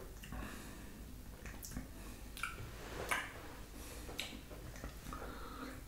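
Mouth sounds of someone tasting a mouthful of bourbon: a few short, wet lip smacks and tongue clicks, about a second apart.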